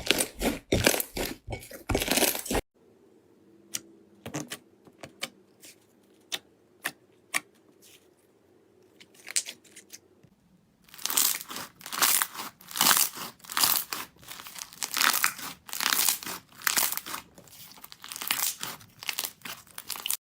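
Slime being worked by hand, giving dense crackling and popping. The sound cuts suddenly about two and a half seconds in to only scattered single pops, then dense crackling starts again at about eleven seconds.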